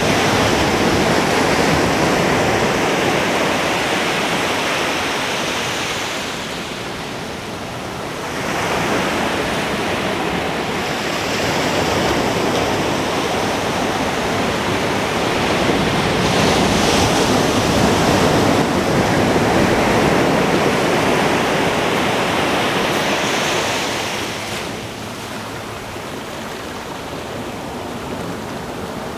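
Ocean waves breaking on a beach, a steady rush of surf that swells and eases: quieter lulls about 7 seconds in and again from about 25 seconds, with louder surges between.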